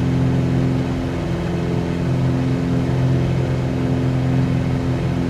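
Cessna 182Q's six-cylinder Continental O-470 piston engine and propeller droning steadily in flight, heard from inside the cabin.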